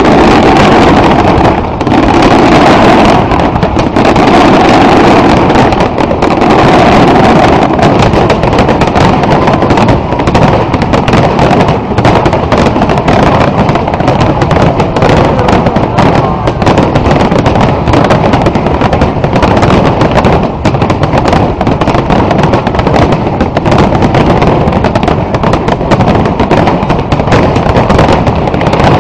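Aerial fireworks display in full barrage: shell bursts and crackle going off so densely that the bangs overlap into one continuous, very loud rumble with no pauses.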